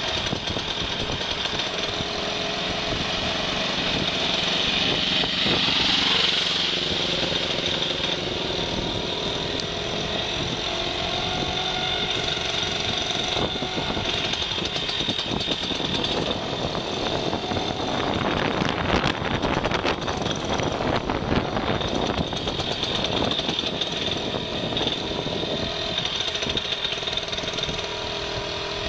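A motor vehicle's engine running steadily at road speed, mixed with wind rushing over the microphone, with a rougher rattling stretch about two-thirds of the way through.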